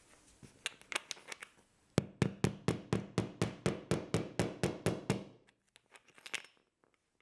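A hammer lightly tapping a plastic wall anchor flush into drywall. A few scattered taps come first, then a quick, even run of about fifteen taps at roughly five a second, lasting about three seconds.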